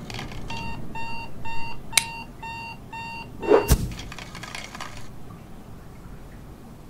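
Electronic alarm clock beeping in quick, evenly spaced beeps for about three seconds, with a sharp click partway through, then a loud thump as the beeping stops.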